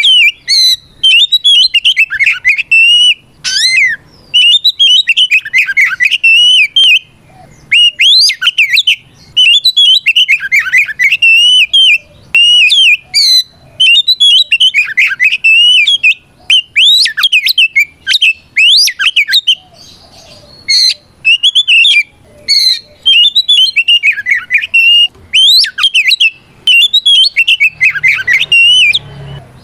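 Oriental magpie-robin (kacer) singing its loud, full fighting song, which calls out a rival. It is a fast run of sweeping whistled notes in phrases of one to two seconds with brief pauses between them.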